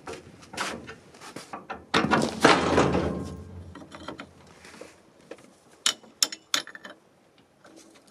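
Metal clanking and scraping of a rusty trailer hitch as the hitch pin is worked out of the drawbar eye, loudest about two to three seconds in, followed by a few sharp clicks.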